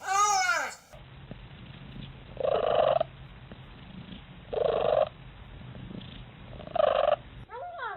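A cat purring steadily, broken by three loud, short calls about two seconds apart. A short meow that rises and falls in pitch opens the sound, and another brief one comes near the end.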